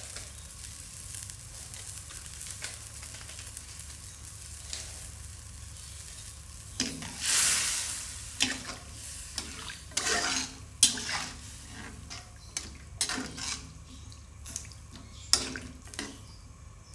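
A metal spatula stirring a thin vegetable curry of chayote and long beans in a wok: steady low hiss at first, then from about seven seconds in the liquid sloshes and the spatula scrapes and knocks against the pan several times.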